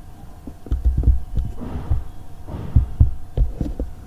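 Several soft low thumps and clicks, with two brief breathy rushes, over a faint steady electrical hum: handling noise near the microphone.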